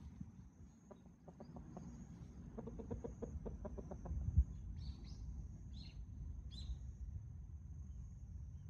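Chickens clucking softly in a run of short low clucks, with a few short high chirps in the second half. A single thump, the loudest sound, comes about four seconds in.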